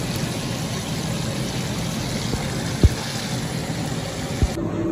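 Breaded chicken pieces deep-frying in a pan of hot oil: a steady sizzle of bubbling fat, with two brief low thumps near the end.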